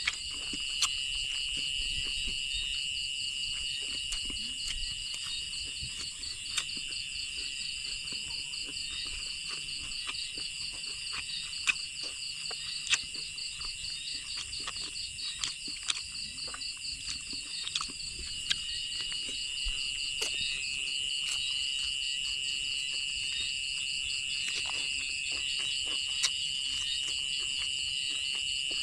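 Chorus of insects such as crickets: a steady shrill trill with a faster pulsing higher note. Many short, sharp clicks are scattered through it.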